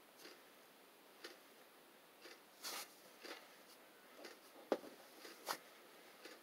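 Faint, irregular clicks and brief rustles in a small, quiet room, about ten in all. A slightly longer rustle comes just before the middle, and a sharper click follows near the three-quarter mark.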